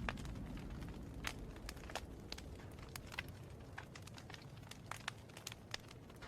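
Fireplace wood fire crackling, with irregular sharp pops and snaps over a low steady rumble of burning.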